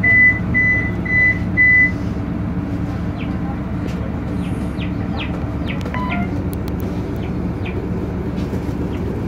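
BMC Belde city bus's Cummins C220-20 six-cylinder diesel running steadily at low revs. Four short electronic beeps sound in the first two seconds, and a few brief high chirps come and go a few seconds later.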